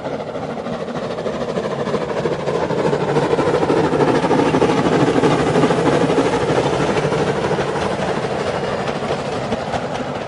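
A steady rumbling noise that swells toward the middle and then slowly fades.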